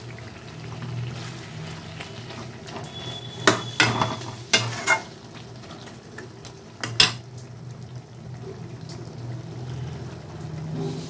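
A spoon knocking and clinking against the cooking pan several times, mostly between about three and a half and seven seconds in, with the gravy sizzling softly as it cooks. A steady low hum runs underneath.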